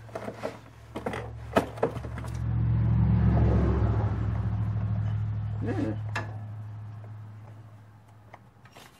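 Engine hum of a passing motor vehicle, swelling for a couple of seconds and then slowly fading away, with a few light knocks of tools or parts near the start.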